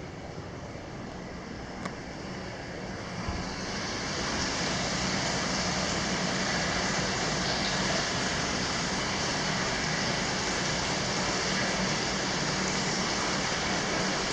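Steady rush of running water, such as hot spring water pouring into an indoor bath. It grows louder and brighter about three to four seconds in, then holds steady, with a couple of faint clicks before that.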